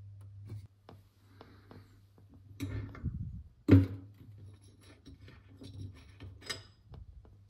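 Metal strainer parts clicking and knocking against a stainless steel kitchen sink as they are handled, with one sharp, loud knock a little under four seconds in, then smaller clicks as fingers work in the drain fitting.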